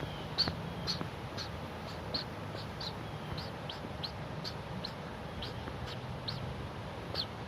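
A person's vocal imitation of chipping sparrow chip notes: short, high, bouncy whistled chips, about two a second and unevenly spaced. Each is made with the tongue in a K position while whistling briefly with wet lips.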